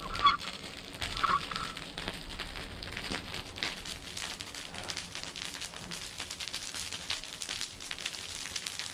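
Large wood burn pile burning with a steady, dense crackle of many small pops.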